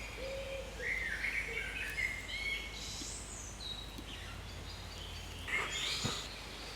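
Wild birds singing: a varied run of short whistled phrases and chirps, with a louder burst of calls about five and a half seconds in.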